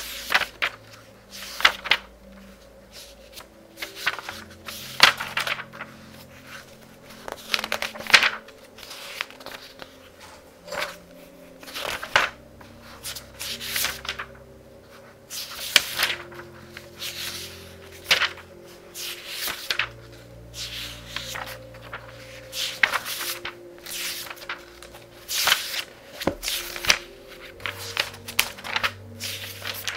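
Thin pages of a very thick book being turned quickly, one rustling flick after another at about one to two a second, over soft background music.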